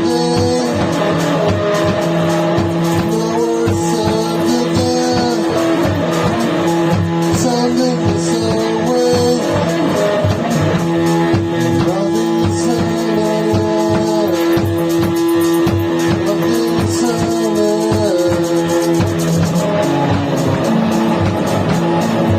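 Band rehearsing krautrock-style psychedelic noise rock: wavering, gliding electric guitar lines over a held drone note and a dense, steady beat.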